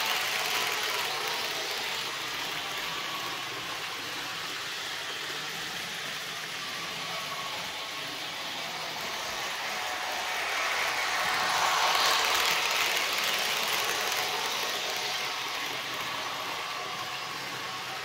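ESU LokSound 5 sound decoder in an H0 model of the ÖBB 2050 playing the locomotive's two-stroke EMD V12 diesel at idle through the model's small speaker. The running sound swells louder for a few seconds around the middle.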